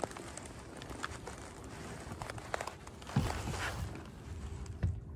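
Water lapping and splashing against a sailboat's hull, with a bigger splash about three seconds in, light clicks, and a couple of low thumps.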